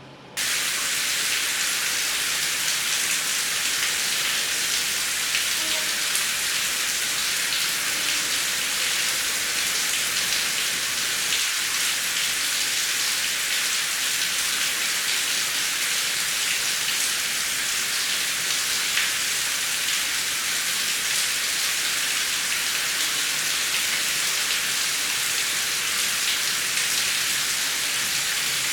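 Heavy rain falling steadily, a dense hiss with fine ticks of individual drops. It starts abruptly just after the beginning and then holds an even level.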